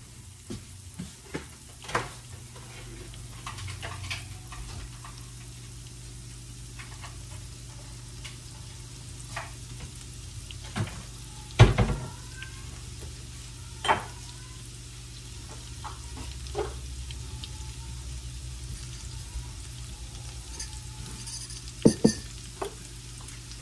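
Chopped onion and garlic sizzling steadily in a cast-iron skillet as they sauté, with scattered kitchen knocks and clatter, the loudest about halfway through and two more near the end.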